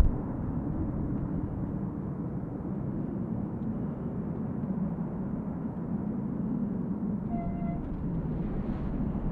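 Steady rumble of jet aircraft engines at the airport, with a brief high tone about seven seconds in.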